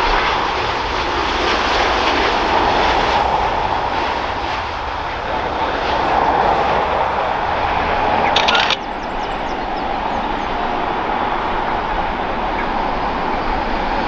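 Jet airliner engines running with a steady roar, heard across the airfield. A short hiss comes about 8 s in, and the level drops suddenly just after it.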